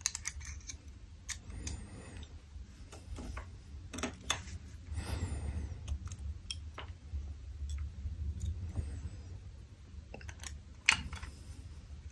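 Light, scattered clicks and taps of metal tweezers picking up tiny screws and setting them into a Nest thermostat's plastic base, with one sharper click near the end.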